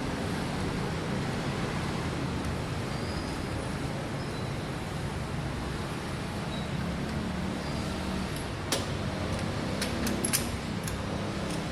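Steady background noise, like distant traffic, with several sharp clicks near the end.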